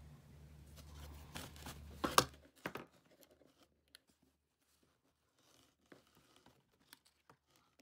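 Handling noise of plastic toy figurines being moved and set down on a paper-and-cardboard toy bedroom: light rustles and clicks, the sharpest about two seconds in. A low hum stops about two and a half seconds in, leaving only scattered faint taps.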